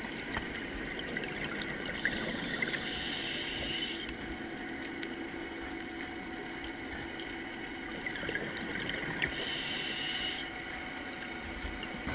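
Muffled underwater ambience heard through a camera housing: a steady low hum and water hiss, with two stretches of brighter bubbling hiss, about two seconds in and again near nine seconds, and scattered faint clicks.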